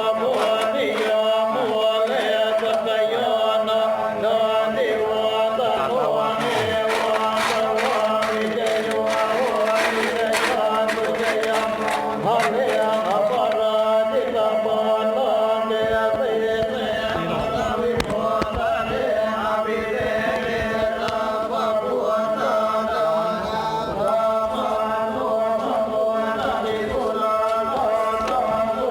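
Buddhist chanting: many voices recite in a steady monotone over a held drone. A few sharp knocks come through roughly six to twelve seconds in.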